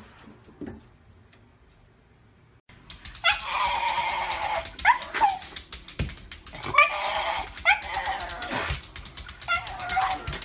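A black-and-tan Shiba Inu vocalizing, starting about three seconds in: a run of about four drawn-out, high-pitched cries that swoop up and down in pitch.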